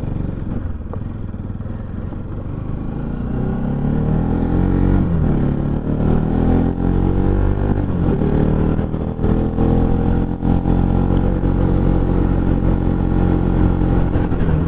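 Bajaj Pulsar NS200's single-cylinder engine pulling uphill: the engine note rises as it accelerates from about four seconds in, then holds steady at a higher pitch.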